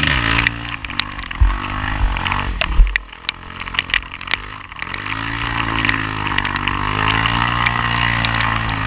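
Sport ATV engine revving hard while its wheels spin in mud, the pitch rising and falling. The revs drop sharply about three seconds in, then climb and hold high, with scattered clicks of flung mud.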